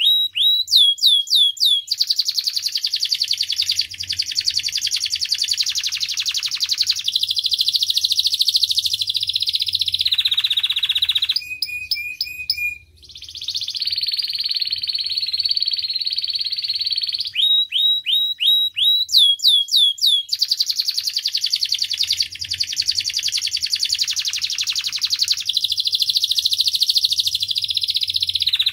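Domestic canary singing a long, continuous song of very fast rattling trills. The trills are broken near the start and again about two thirds through by runs of quick down-slurred whistles, with a brief pause near the middle.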